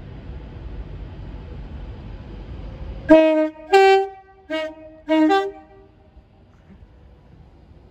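Class 390 Pendolino electric train sounding its two-tone horn as it runs in: four short blasts in about two and a half seconds, switching between a low and a high note. Before the blasts, the train's low rumble as it approaches.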